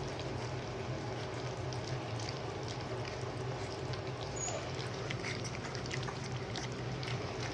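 Several beagle puppies lapping and smacking at soft wet gruel, an irregular patter of small wet clicks over a steady low hum.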